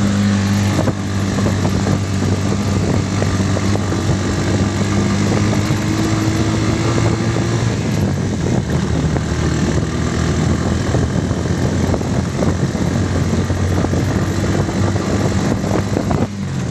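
Engine of a small open-sided passenger vehicle running while under way, heard from inside the cab, over a noisy rush with rattles. The engine's pitch climbs slowly a few seconds in.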